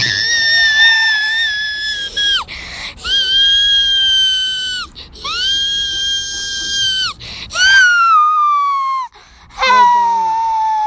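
A very high, shrill voice screaming in five long held shrieks with short breaks between them; the last two slide downward in pitch.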